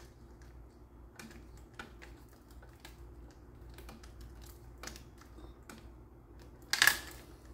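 Faint, irregular small clicks and ticks as a terminal screw on a light fixture is tightened down onto the neutral wire, with one louder brief rasp near the end.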